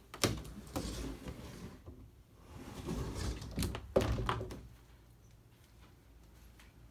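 A few sharp knocks and thuds with rustling between them in a small room: one about a quarter second in, another soon after, and the loudest about four seconds in, then it goes quiet.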